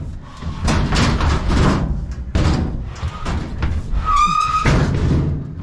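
Scrap metal clattering and banging as pieces are handled and loaded, a run of knocks and bangs, with a brief high ringing squeal of metal about four seconds in.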